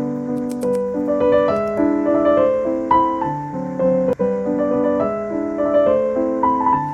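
Background music: a gentle piano tune playing a melody over chords.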